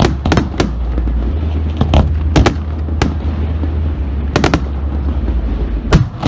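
Aerial fireworks shells bursting: about ten sharp bangs at uneven spacing, some in quick pairs and triples, over a steady low rumble. The loudest bang comes near the end.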